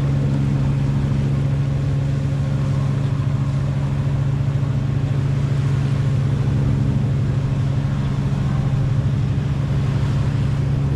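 A sailboat's auxiliary engine running steadily under power, a constant low drone, with water rushing and splashing along the hull.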